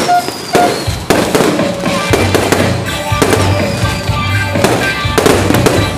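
Aerial fireworks bursting in a rapid string of bangs and crackles, with music playing underneath.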